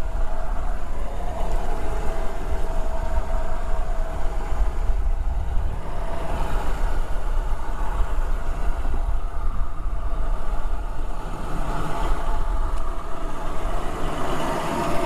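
A fishing boat's engine running steadily, a continuous low rumble with a hum over it.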